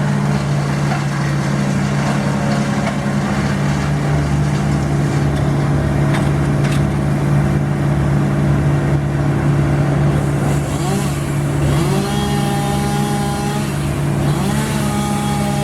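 Engine of heavy tree-removal machinery running steadily. Twice in the second half a whine rises and then holds.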